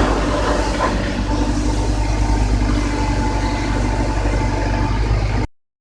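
Drum wood chipper running steadily with a deep hum and a few steady whining tones, cutting off suddenly near the end.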